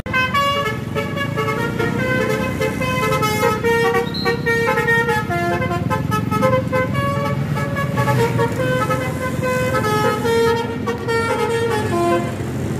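A bus's telolet horn, a multi-tone musical horn, playing a quick melody of short stepped notes over a steady low rumble, stopping shortly before the end.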